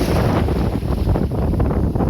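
Strong wind buffeting the microphone as a low, fluttering rumble, over the wash of sea waves on a sandy beach.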